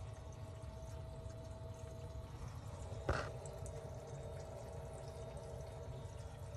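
Water pouring and trickling in a saltwater aquarium's filter area, over a steady faint hum. One short sharp sound comes about three seconds in.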